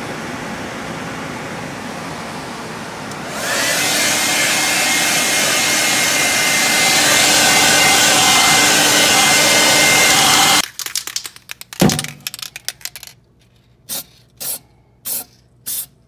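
Hand-held hair dryer blowing steadily, getting louder about three seconds in with a steady whine on top. It stops about two-thirds of the way through; after a knock come several short hisses from an aerosol spray can.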